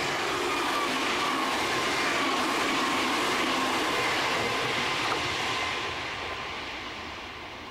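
Nankai 50000 series rapi:t electric express train passing at speed: a continuous rush of wheel and running noise with a whine that slowly drops in pitch as it goes by, fading away over the last couple of seconds.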